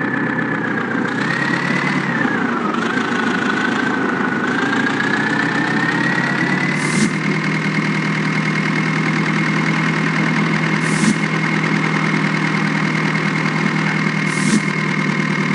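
JCB 3DX backhoe loader's diesel engine running under work, its pitch wavering and then rising to a steady higher speed about halfway through. Three brief sharp ticks come through over it.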